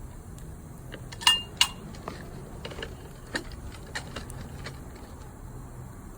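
Metal clinking: two sharp clinks about a second and a half in, the first with a brief ring, then a run of lighter clicks and taps.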